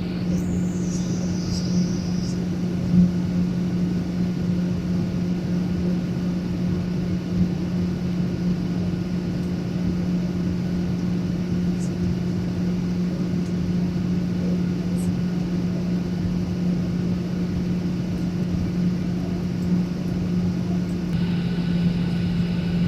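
Steady drone of an airliner's engines heard inside the passenger cabin: a low, even hum at one pitch over a constant rush of air noise. A brief high whine sounds in the first two seconds.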